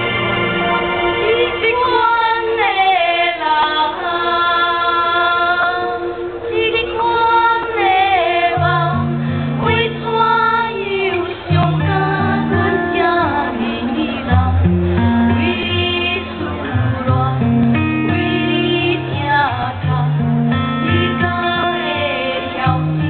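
Women singing a Hokkien song through the stage PA over amplified music, the melody full of sliding notes; a bass line comes in about eight seconds in.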